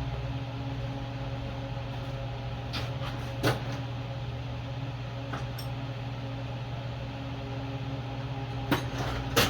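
A steady low hum throughout, with a few short metallic clinks of hand tools on metal as a wrench is fitted to the engine mounting bolts; the loudest clinks come about three and a half seconds in and near the end.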